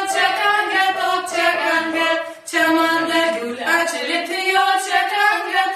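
A group of voices singing a song in Uzbek together, with upright piano accompaniment; the singing breaks briefly about two seconds in and then carries on.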